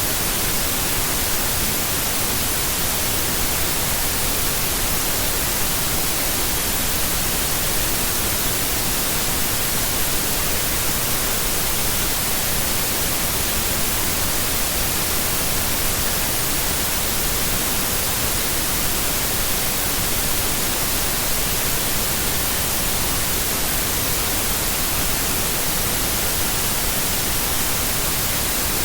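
Steady synthetic white noise: an even, unbroken hiss, strongest in the highs, with no pauses.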